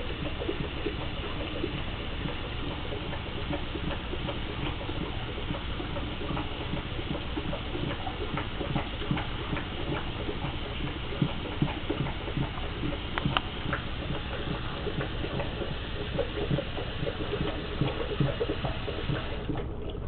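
Bathroom-sink faucet running with a steady splash while a Great Dane laps from the stream, his tongue making many quick, irregular wet clicks. The running water stops near the end.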